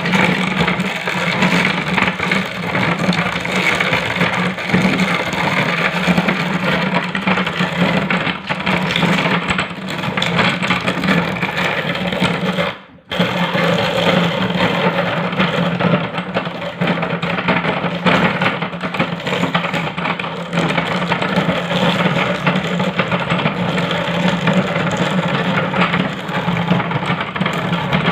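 Meat grinder running with a steady motor hum while crunching and crackling through colourful snack pellets, cut by a brief break about halfway through.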